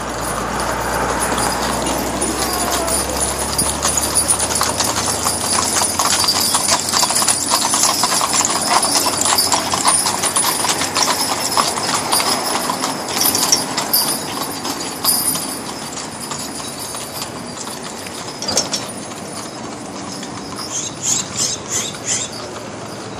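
A team of horses' hooves clip-clopping on asphalt as they pull wagons past. The hoofbeats are a dense, rapid clatter that grows louder as the team draws close, then fades as it moves away.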